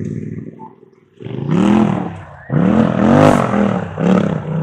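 UTV engine revving in repeated blips, its pitch rising and falling with each one. It starts after a short lull about a second in.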